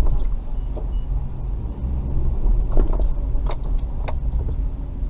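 Off-road 4x4's engine running at low speed, heard from inside the cabin as a steady low rumble, with a few sharp knocks and clicks in the second half.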